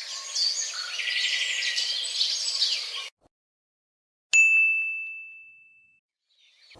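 Birds chirping, cut off suddenly about three seconds in; after a short silence, a single bell-like ding rings out and fades over about a second and a half.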